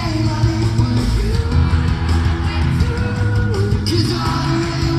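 Pop-punk band playing live in an arena, heard from the stands: electric guitars, bass and drums with a sung lead vocal.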